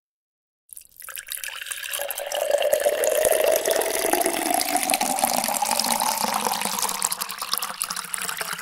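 Water poured into a container, starting about a second in after a moment of silence; the ringing pitch of the vessel rises steadily as it fills.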